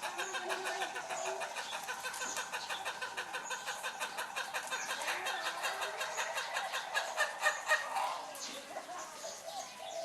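Ayam Ketawa (laughing chicken) rooster crowing in its long run of rapid, staccato notes that sound like human laughter. The notes grow louder about seven seconds in, then tail off.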